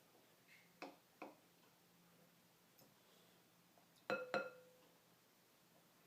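Two light taps on a hard object about a quarter second apart, each ringing briefly with a clear tone, after a couple of faint clicks; otherwise near silence.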